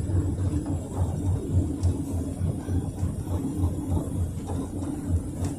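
Cabin noise of a PAZ 32054 bus under way: a low, steady rumble from its ZMZ-5234 V8 petrol engine and road, with faint occasional rattles.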